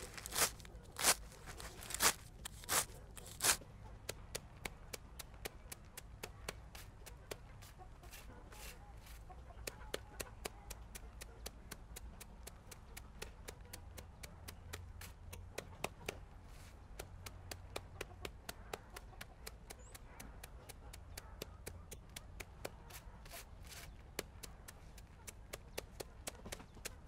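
Repeated sharp knocks or taps: five louder strikes spaced a little under a second apart in the first few seconds, then a quicker run of lighter taps, about three or four a second.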